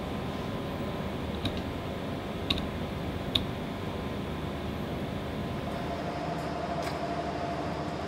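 Steady machinery hum, with three short sharp clicks in the first half and a steady whine that comes in about six seconds in.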